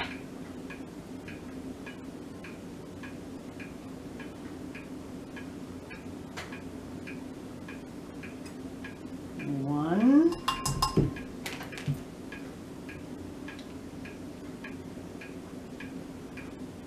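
Dried minced garlic being shaken from a bottle into a plastic measuring spoon, with a short clatter of the spoon against the bottle and bowl about ten seconds in, together with a brief rising hum from her voice. A rapid, even ticking and a low steady hum run underneath.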